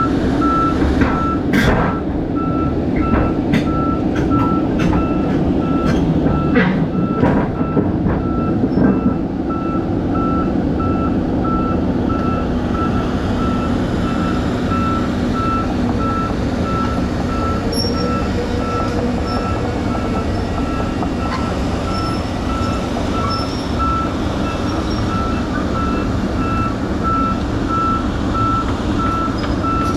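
A backup alarm on heavy equipment beeps steadily and evenly over a diesel engine running. Sharp metallic knocks and clanks come through in the first several seconds.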